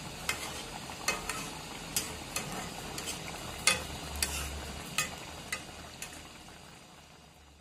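Fish and vegetable curry bubbling in a pan: a steady sizzle with scattered sharp pops and clicks, a spatula stirring through the gravy at the start. The sound fades out near the end.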